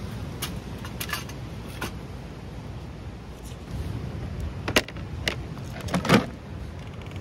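Scattered knocks and clinks of split firewood and metal being handled at a stainless-steel folding fire box, the two loudest about five and six seconds in, over a steady low background rumble.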